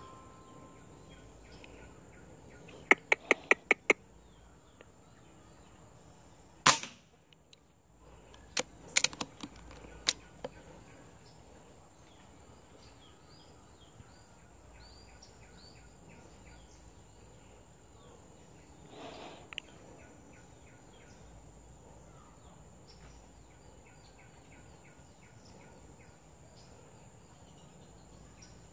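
Sharp cracks from an air rifle being fired at a squirrel in a tree: a quick run of about seven about three seconds in, one loud crack near seven seconds, and a few more around nine to ten seconds. Faint bird chirps sound between them.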